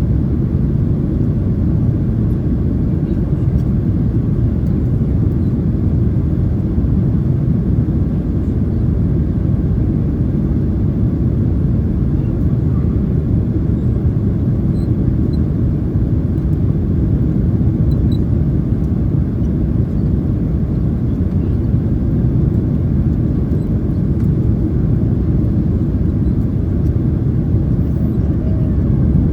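Steady low roar inside the cabin of a Boeing 767-300ER in flight, the airflow and engine noise heard from a passenger seat.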